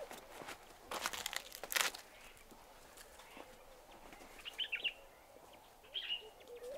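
Footsteps crunching on dry leaves and stony ground, twice in the first two seconds. Then short bird chirps come twice, at about four and a half seconds and again near six seconds.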